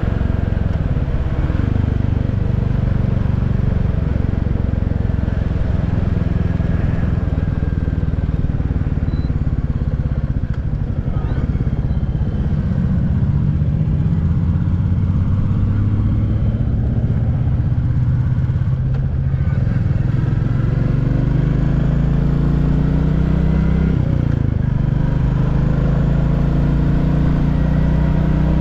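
Royal Enfield Classic 350's single-cylinder engine and exhaust running under way. The exhaust note drops and climbs again a few times as the throttle is eased off and reopened.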